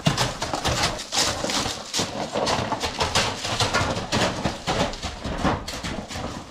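Horses' hooves knocking on the ground in quick, irregular beats as stallions move about.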